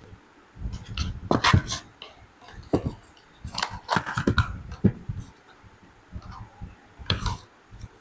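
Earbud packaging being handled and opened: irregular crinkly rustles and sharp clicks, some with a dull knock.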